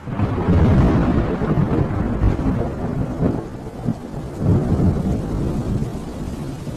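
Thunder rumbling over rain. It begins suddenly, is loudest about a second in, and slowly tails off with further low rolls.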